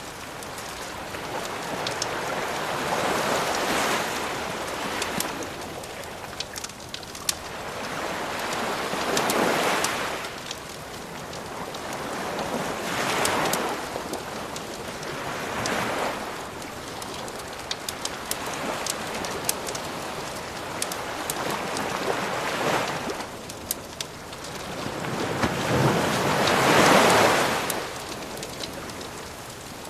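Waves washing in and drawing back in slow swells every few seconds, the biggest one near the end. A wood fire crackles and pops over them.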